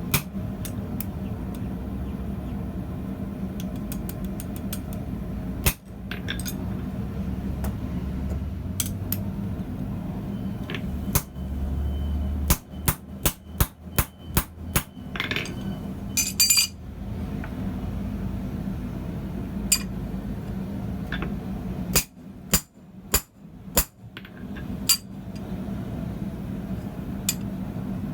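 Hand hammer striking hot steel on an anvil during blacksmith forging: a quick run of about seven ringing blows near the middle, a few more blows later on, and scattered lighter taps, over a steady low hum.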